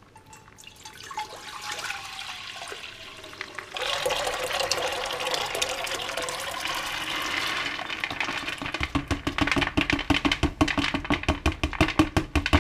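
Soaked maize and its soaking water poured from a plastic bucket into a stainless steel pan. First a stream of water runs into the pan, growing louder about four seconds in. From about nine seconds the swollen grains slide out in a rapid run of splashes and glugs.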